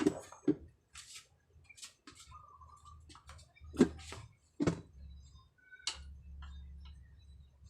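Irregular light clicks and knocks of tools and metal parts being handled during a bike repair, with two louder knocks near the middle, over a faint steady low hum.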